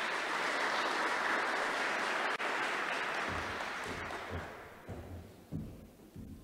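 Audience applauding, the clapping dying away over the first four seconds or so, followed by a few dull low thumps.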